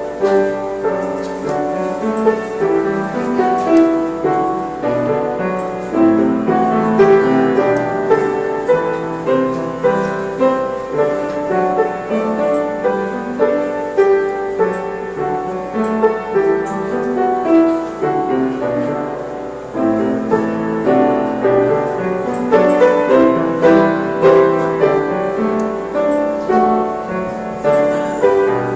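Piano playing: a continuous flow of chords and melody notes with no break.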